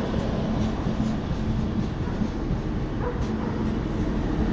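ONCF ZMC electric commuter train running steadily on the rails as it passes underneath, with a few faint clicks from the wheels.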